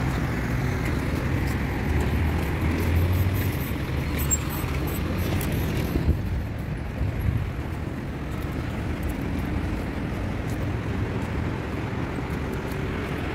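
Road traffic on a busy city street: cars driving past with a steady low rumble that is strongest about two to three seconds in.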